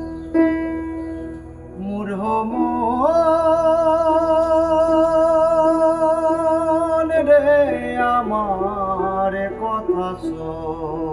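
Background music: a singing voice slides up about two seconds in, holds one long wavering note, then moves through a run of shorter notes over a soft accompaniment.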